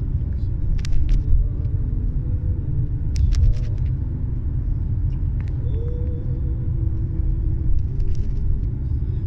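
Low, steady rumble of a car's cabin on the move, road and engine noise heard from the back seat, with a few faint clicks.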